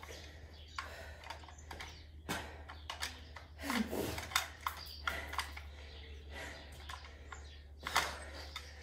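Scattered footfalls and taps of trainers on a hard floor during a knee-lift and side-kick exercise, with a sharp knock about eight seconds in. A short falling pitched sound comes about four seconds in, over a steady low hum.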